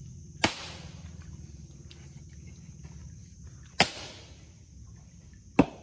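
Three sharp chopping strikes into dead mangrove wood, the first about half a second in and the others near four and five and a half seconds, each a single hard knock.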